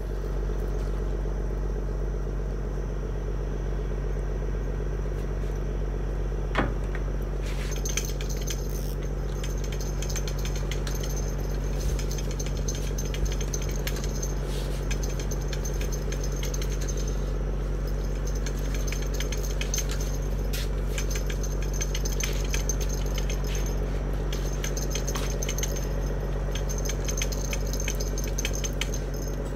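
Fishing reel being wound: a fast, light metallic clicking that starts about a quarter of the way in and keeps going, over a steady low hum.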